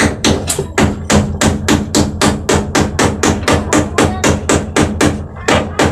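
Rapid, even pounding, about four strikes a second: nails being driven into a plywood panel with a stone used in place of a hammer.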